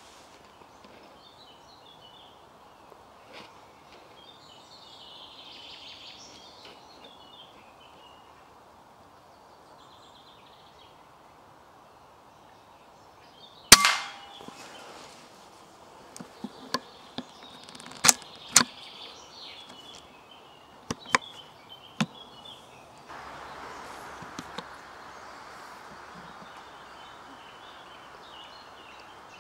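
A single air rifle shot about fourteen seconds in, a sharp crack that is much the loudest sound, followed over the next several seconds by a handful of quieter sharp clicks. Faint birdsong chirps in the background.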